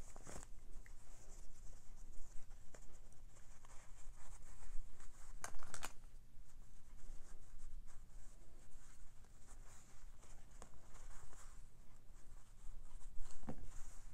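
Hands rustling and rubbing cotton fabric while a small sewn fabric piece is turned right side out, with a few brief clicks, two close together about five and a half seconds in.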